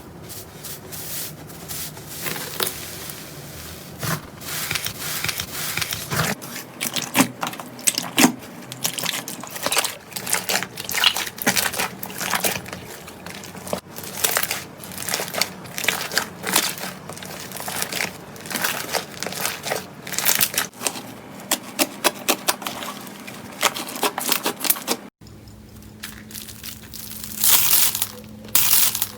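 Slime being squeezed and pressed by hand, giving dense runs of small pops and crackles. The sound changes abruptly about six seconds in and again near the end.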